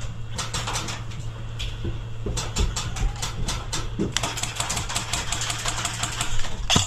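Airsoft electric guns firing in rapid, irregular bursts of sharp clicks, over a steady low hum.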